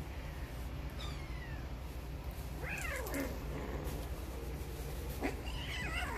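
Young kittens mewing during play: a faint short falling cry about a second in, a longer mew that rises and then drops steeply around the middle, and another high cry starting near the end.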